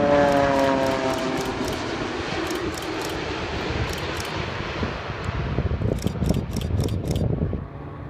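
Boeing 787-8 Dreamliner flying low past on its landing approach: its engine whine falls in pitch as it goes by, then gives way to a fading jet rumble as the airliner moves off down the runway.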